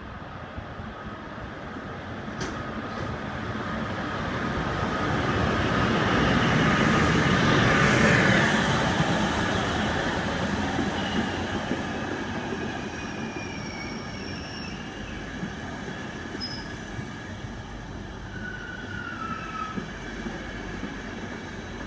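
An ÖBB class 1216 Taurus electric locomotive hauling a EuroCity passenger train passes close by. The noise builds to a peak about eight seconds in as the locomotive goes past, then the coaches roll by with short, thin, high squeals from the wheels.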